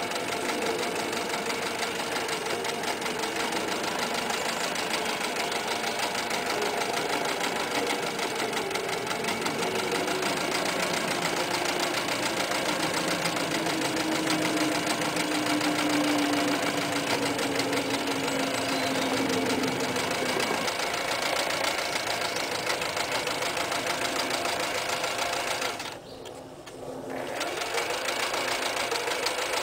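Toyota 9060 electric sewing machine running steadily, stitching through thick layers of denim jeans. It stops for about a second near the end and then starts again.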